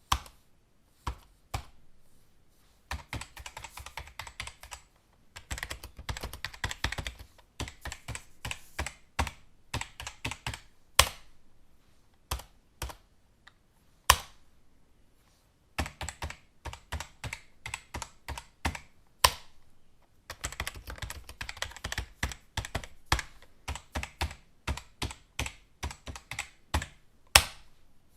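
Computer keyboard typing: runs of rapid keystrokes lasting several seconds, broken by slower stretches of scattered key presses, with a few single keys struck louder than the rest.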